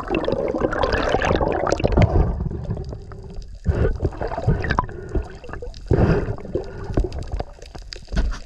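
Water gurgling and sloshing against a spearfisher's camera in the sea. The sloshing is heaviest for the first two seconds, with a few shorter surges later.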